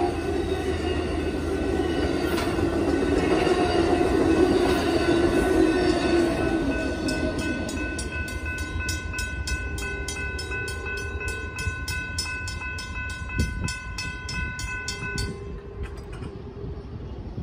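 Amtrak Coast Starlight's bilevel passenger cars running past over the rails, a loud rumble that fades over the first several seconds as the train clears. Then the grade-crossing warning bells ring rapidly, about four strokes a second, and stop suddenly about fifteen seconds in.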